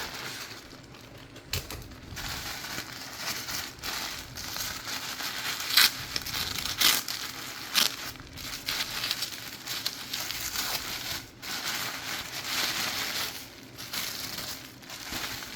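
Packaging being handled and unwrapped: paper crinkling and rustling, with sharp crackles, the loudest a few about six to eight seconds in.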